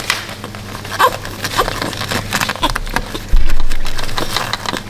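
Newborn puppy suckling at a milk syringe: a run of small wet clicks and smacks with a few faint squeaks. About three seconds in, a louder low bump from handling comes in and fades.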